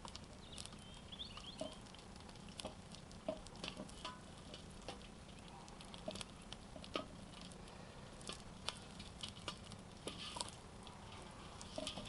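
Fatty diced meat frying in suet in a saç pan, sizzling faintly with irregular small pops and clicks as it is stirred.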